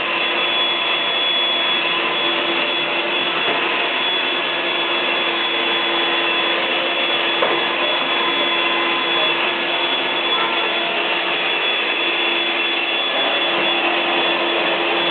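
Vacuum cleaner running steadily, a constant high whine over the rush of air.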